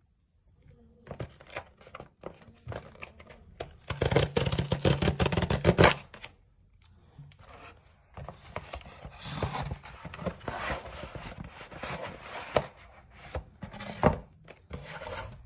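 Hands handling packaging: scattered clicks, then a loud crinkling rustle for about two seconds, then a longer stretch of rubbing and scraping and a single knock near the end.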